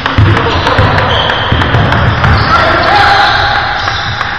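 Basketball game on a hardwood court: the ball bouncing with repeated thuds, sneakers squeaking and footfalls as players run, and players' voices calling out.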